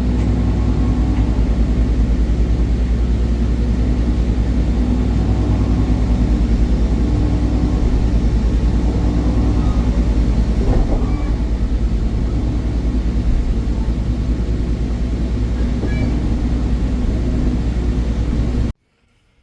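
Steady low drone of a moving vehicle, running evenly throughout before cutting off suddenly near the end.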